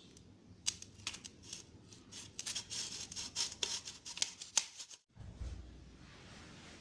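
A blade working raw potatoes by hand: a quick run of sharp scraping strokes. It stops abruptly about five seconds in, followed by a faint low hum.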